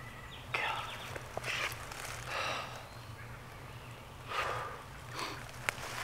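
Intermittent rustling and brushing of leaf litter and brush, from footsteps through woodland undergrowth and the handling of a dead wild turkey gobbler's feathered body. There are several short rustles, with a single sharp click near the end.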